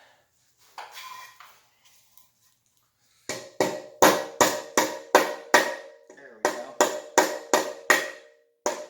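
A quick run of hammer blows on metal starts about three seconds in, nearly three a second, each leaving a short metallic ring. There is a brief break near six seconds. Before the blows there is only light handling noise.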